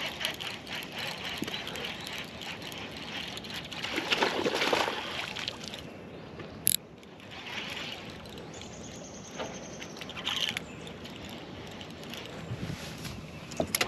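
Baitcasting reel being cranked by hand, with small handling clicks, over water sloshing against a boat hull. One sharp click near the middle.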